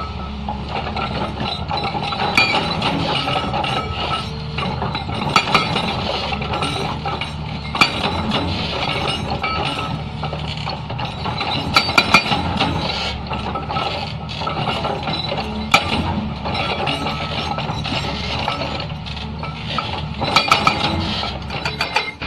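Hyundai excavator with a hydraulic rock breaker attachment: the engine runs steadily while sharp metallic clinks and knocks come at irregular moments, a few louder around the middle and near the end.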